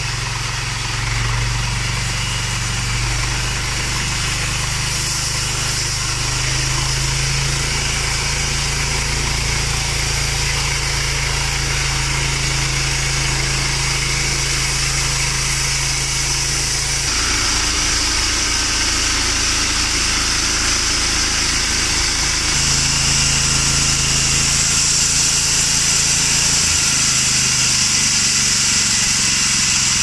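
Homemade band sawmill running on its small engine, the band blade sawing lengthwise through a Paulownia log in one continuous pass. There is a steady engine hum under a loud high hiss from the cut, and the engine note shifts about halfway through.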